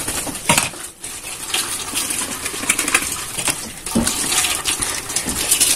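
Tap water running and splashing into a stainless-steel sink, with scattered sharp clinks and scrapes of a knife working the hoof end of a beef trotter.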